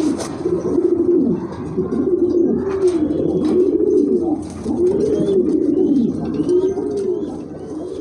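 Domestic pigeons cooing over and over, one rising-and-falling coo after another about once a second, several birds overlapping.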